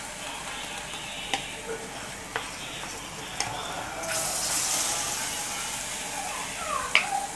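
Cassava cakes frying in a small pan of hot oil, a steady sizzle that grows louder about four seconds in as another cake is laid into the oil, with a few sharp clicks along the way.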